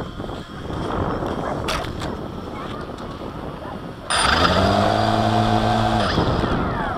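Wind rumbling on the microphone. About four seconds in, a steady motor hum with a clear pitch starts suddenly, holds for about two seconds, then sinks in pitch as it fades.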